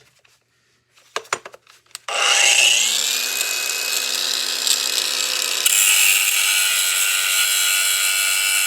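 A few clicks, then an electric power tool's motor spins up with a rising whine and runs steadily, turning harsher a little past halfway, as if working against metal.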